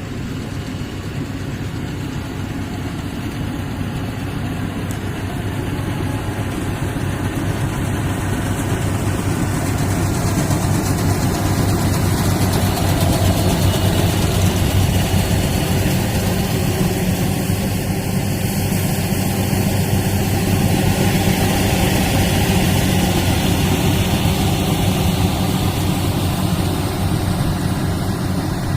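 Rice combine harvester running steadily with a heavy engine drone and machinery noise, growing louder over the first half.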